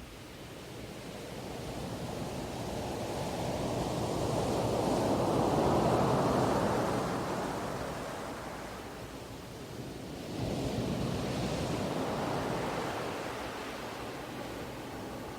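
Ocean waves washing onto a shore: one swell builds to a peak about six seconds in and draws back, then another wave breaks about ten seconds in and slowly fades.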